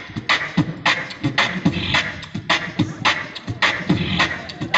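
Beatboxing amplified through a microphone and PA: a steady vocal-percussion beat of low kick-drum thumps and sharp snare and hi-hat sounds, about three or four hits a second.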